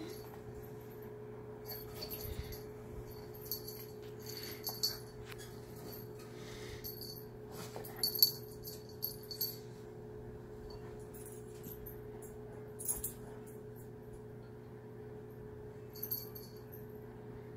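Pet collar jingling in short, bright bursts, about five of them, as a kitten plays on an English Mastiff, with a sharp knock about eight seconds in, over a steady low hum.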